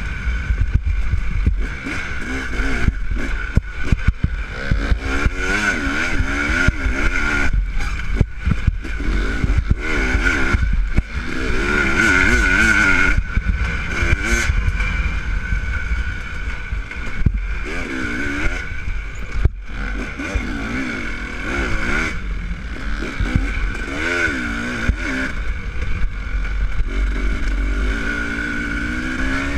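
Dirt bike engine running under load, its pitch rising and falling over and over as the throttle opens and closes on a rough trail, with knocks from bumps and wind on the microphone.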